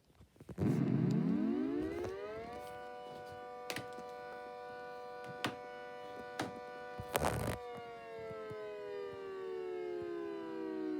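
Gents air raid siren spinning up, its pitch rising fast for about two seconds, then sounding a steady tone of several notes together before slowly winding down in pitch from about seven seconds in. A few sharp clicks or knocks sound during the steady part.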